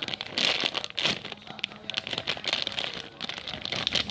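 Plastic packaging around a squishy toy crinkling as it is handled, an uneven run of crackles with no steady rhythm.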